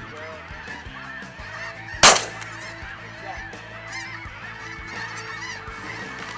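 A large flock of snow geese calling continuously in many overlapping honks. About two seconds in, a single loud shotgun blast cuts through the calling.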